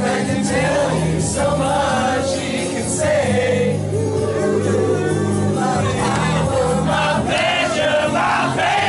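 A group of men singing together, with music and sustained low notes underneath.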